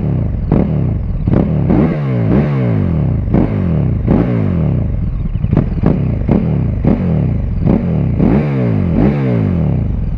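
KTM 1290 Super Duke R V-twin at a standstill, revved through an Akrapovic titanium slip-on exhaust with the catalytic converter fitted. The throttle is blipped about a dozen times, the revs jumping up and falling back each time.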